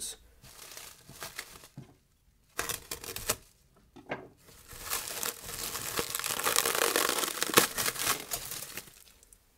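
Plastic cling film crinkling and crackling as it is handled and peeled off a bowl: a few short crinkles, then several seconds of continuous crinkling, loudest near the end.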